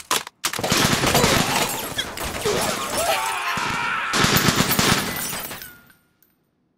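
Sustained automatic rifle fire in an animated battle scene: dense, overlapping rapid shots, with a brief break just after the start. The fire dies away about six seconds in.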